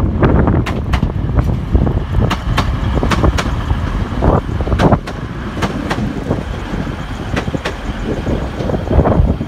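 TransPennine Express Class 185 diesel multiple unit passing close by, with a steady rumble of running noise. Sharp clacks come in pairs as each bogie's wheelsets cross rail joints or points.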